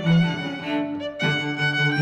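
Background music led by bowed strings, violin over cello, playing held notes that change about a second in.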